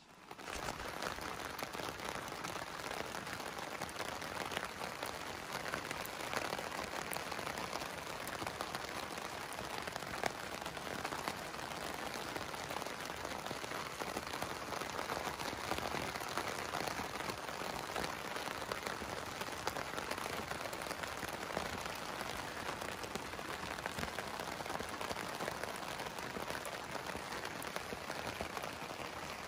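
Steady rain falling onto the wet shell of a roof-top tent, a constant hiss with scattered drop ticks.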